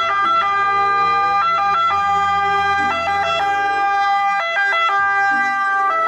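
Ambulance siren sounding steady tones that switch to a second pitch several times, over a faint vehicle hum.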